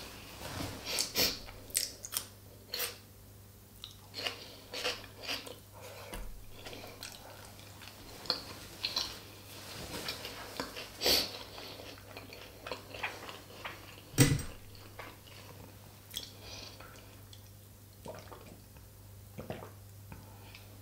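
Close-miked chewing and mouth sounds of a person eating, with scattered short wet clicks and smacks, one louder knock about two-thirds of the way through, and a sip from a glass near the end.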